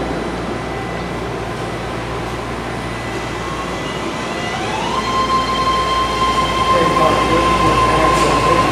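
BART train arriving at an underground station platform. The rumble grows louder, and about four seconds in a high whine rises in pitch, then holds steady.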